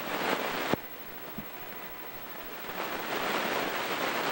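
Rushing wind noise on a camcorder microphone outdoors in the snow, broken off abruptly with a click less than a second in where the recording stops and restarts, then swelling up again toward the end.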